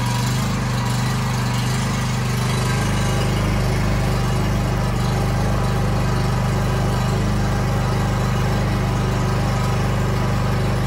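Champion 4250-watt open-frame inverter generator's engine running steadily just after an electric start on its automatic choke. It is still warming up, and the idle may take a couple of minutes to smooth out.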